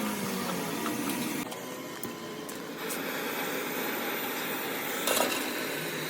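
Steady workshop background noise with a few light clicks and one louder knock about five seconds in.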